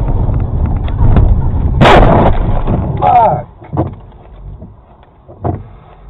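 Car collision recorded by a dashcam: steady road noise, then a sudden loud crash of impact about two seconds in. A short shout follows, then a couple of smaller knocks.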